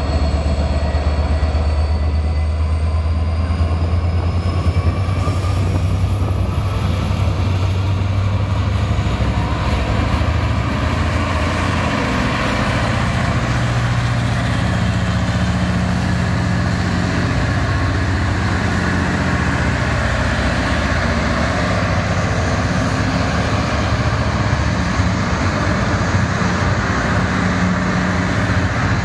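Freightliner Class 66 diesel locomotive, with its EMD two-stroke V12 engine, passing at close range with a strong low engine note. That note fades after about ten seconds, giving way to the steady noise of loaded container wagons rolling past.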